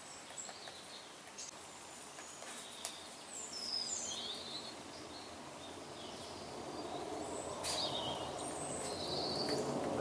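Small birds chirping with short, high calls that slide in pitch, with a few faint, sharp, irregular taps, a great spotted woodpecker pecking at the bark of a walnut trunk. A steady background noise grows louder through the second half.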